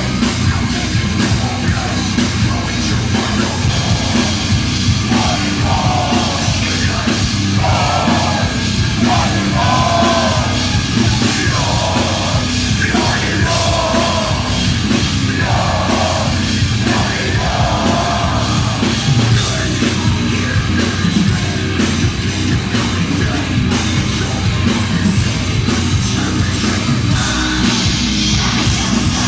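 Heavy metal band playing live, with distorted guitars, bass and drums at a loud, steady level. Yelled vocals ride over the music for a stretch in the middle.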